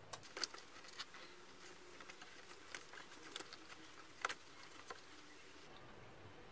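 Faint, irregular clicks and scrapes of a screwdriver loosening a metal hose clamp on the air-filter intake hose, a dozen or so sharp ticks.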